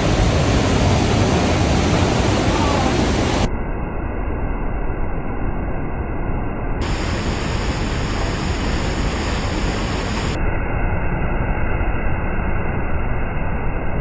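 Rhine Falls, a 23-metre-high waterfall on the Rhine, roaring: a loud, steady rush of crashing water. The sound turns duller and then brighter again at edits about 3.5, 7 and 10.5 seconds in.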